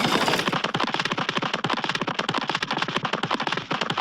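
Cartoon sound effect: a rapid, even rattle of sharp clicks, about a dozen a second, that stops near the end.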